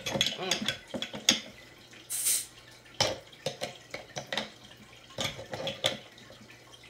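Scattered clicks, scrapes and knocks from a soda bottle and its cap being handled by someone struggling to open it, with a short hiss about two seconds in.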